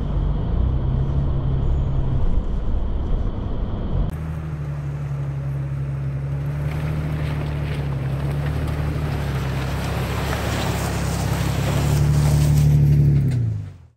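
Pickup truck engine drone: first heard from inside the cab while it drives over the gravel beach, then, after a cut, from outside with wind noise. The sound fades out near the end.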